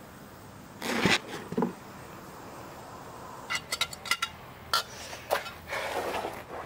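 Handling noises from metal exhaust tips: a short scrape about a second in, then a run of light metallic clinks and taps, and a rustle near the end.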